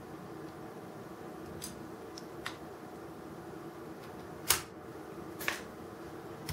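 Small metal parts of a diecast model crane clicking and tapping as friction pins are worked off its boom cylinders. There are a handful of short, sharp clicks, the loudest a little past the middle, over a steady low room hum.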